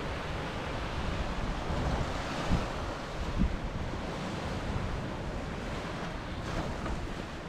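Small surf washing onto a sandy, rocky shore, with wind buffeting the microphone as a steady low rumble. Two brief wind thumps about two and a half and three and a half seconds in.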